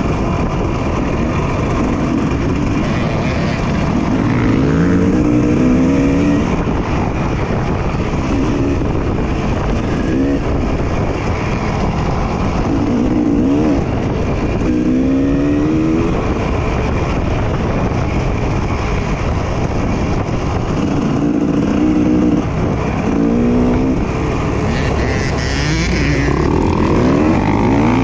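Dirt bike engine riding a woods single-track trail, its pitch rising and falling over and over as the throttle opens and closes.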